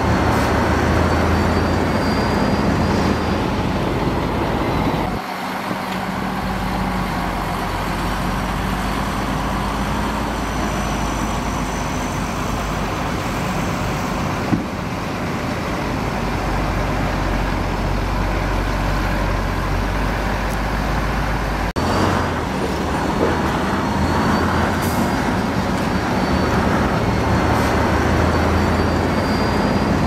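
Heavy diesel construction machinery running steadily, with a deep engine hum and a thin high whine at times. The sound changes abruptly about five seconds in and again about twenty-two seconds in, as one clip cuts to another.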